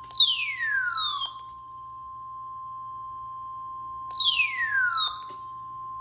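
NOAA Weather Radio warning alarm tone: a steady single high tone of about a thousand hertz, with two loud falling chirps sweeping down over it, one at the start and one about four seconds later.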